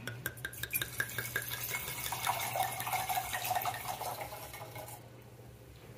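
Red wine poured from the bottle into a glass, splashing and gurgling as the glass fills. It comes after a few sharp clicks and clinks of the bottle and glasses in the first two seconds, and the pouring fades out near the end.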